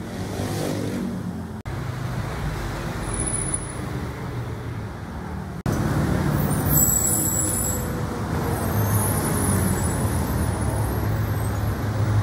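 Road traffic noise: a steady rumble of passing cars, with one vehicle going by in the first second or so, its pitch falling. The sound drops out for an instant twice.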